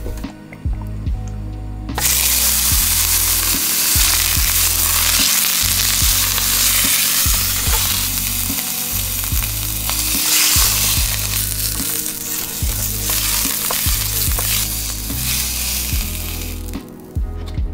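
A chuck roast searing in a hot nonstick pan, a loud steady sizzle that starts about two seconds in and cuts off near the end. Low background music runs underneath.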